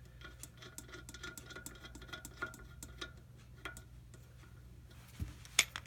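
Faint small metallic ticks and clicks of a screw and an angled screwdriver being handled as the set screw goes back into a range hood's fan wheel hub, with a sharper click near the end, over a low steady hum.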